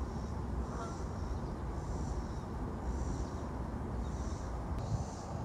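Woodland outdoor ambience while walking on a trail: a steady low rumble on the microphone, with a faint high chirring that repeats about once a second.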